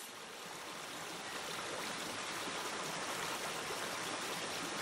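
Shallow forest stream running over rocks: a steady rush of water that grows a little louder over the first couple of seconds.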